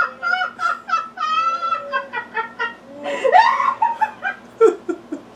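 High-pitched laughter in a quick run of short, repeated hoots, several to a second, with no words.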